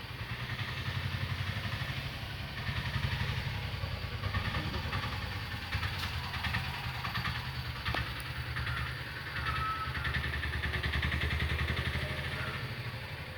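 An engine idling steadily with a low, fast-pulsing rumble, a couple of sharp ticks in the middle.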